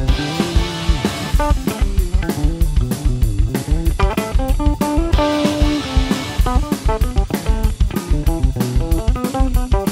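Instrumental rock music: a four-string electric bass played with the fingers, running a line of quick notes over a steady drum-kit beat.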